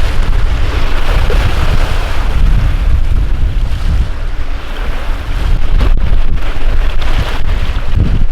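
Strong gusty wind buffeting the microphone, with a deep rumble that rises and falls, over wind-driven waves washing on the lake shore.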